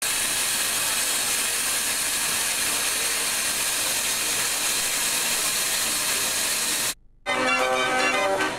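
Steady hiss of a John Fowler steam engine running with its flywheel turning, cut off abruptly just before seven seconds in. After a brief gap a Mortier fairground dance organ plays sustained chords.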